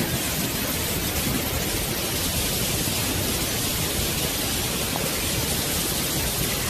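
A steady, even hiss with no pitched sound in it.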